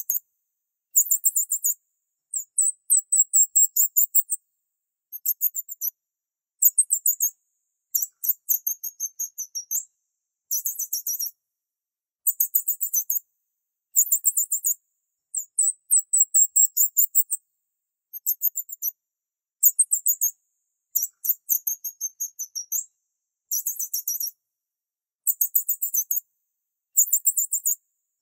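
Very high-pitched chirping trills in short bursts, about one a second, each made of rapid pulses, with dead silence between bursts.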